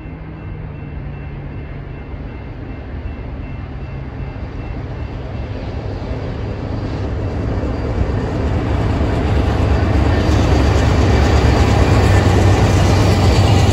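Freight train's diesel locomotives approaching, a low engine rumble that grows steadily louder as the train closes in, loudest near the end.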